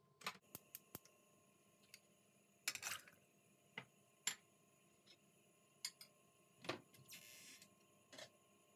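Faint, irregular clicks and ticks, about a dozen scattered through the stretch, with a short soft hiss about seven seconds in.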